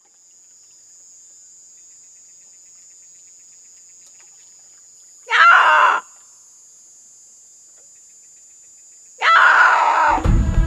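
A man shouting out two long, loud calls, the first about five seconds in and the second, longer one near the end, over a faint steady high-pitched whine in the background.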